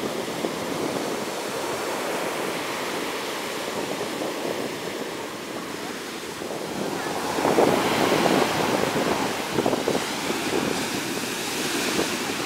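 Heavy storm surf breaking and washing up a sandy beach, with wind on the microphone. The wash swells louder about seven to eight seconds in, and again near the end.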